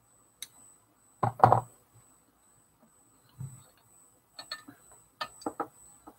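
Handling noise from a hand bumping and brushing against the camera. There are two close knocks a little over a second in, a dull thud midway, then a quick run of small clicks and taps in the second half.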